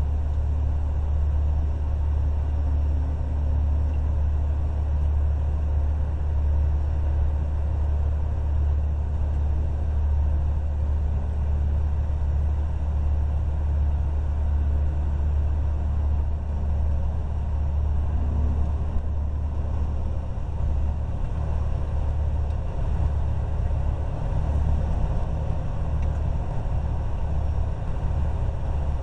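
Steady low rumble of an idling truck engine.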